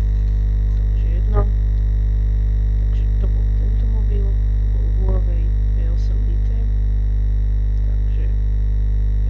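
Background music: a steady, droning synthesizer chord held throughout, with a short click about a second and a half in.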